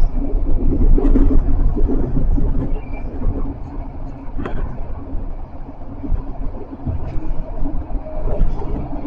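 Tram running on rails, heard from inside near the driver's cab: a steady low rumble of wheels and running gear with a constant hum, and a few sharp clicks.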